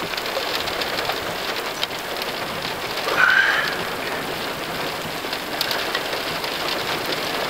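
Steady rain during a thunderstorm, with drops ticking close by. About three seconds in, a brief high tone rises slightly over the rain.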